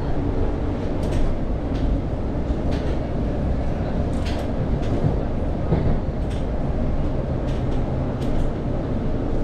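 London Overground Class 710 electric train heard from inside the carriage while running: a steady low rumble of wheels on rail, with irregular clicks and knocks over the track.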